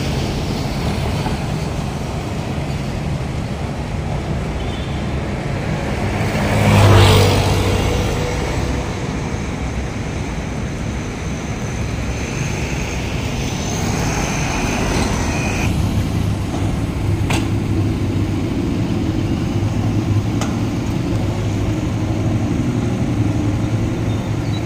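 Road traffic running steadily, with one vehicle passing close and loud about seven seconds in.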